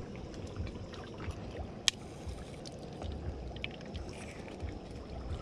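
An egg cracked once on the rim of a small frying pan, a single sharp tap about two seconds in, over a low, uneven rumble of wind and lapping water.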